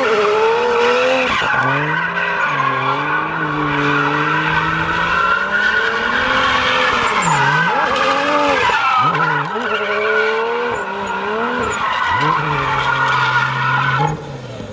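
Turbocharged BMW 335i inline-six revving up and down through a donut, with its tires squealing. The engine note dips and recovers several times as the very grippy tires fight the spin.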